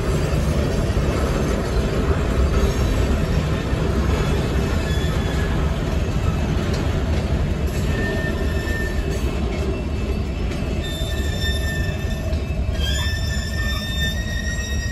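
Freight train of tank cars rolling past close by: a steady low rumble of wheels on rail. A high-pitched squeal from the wheels comes in briefly about halfway through, then holds steady over the last couple of seconds.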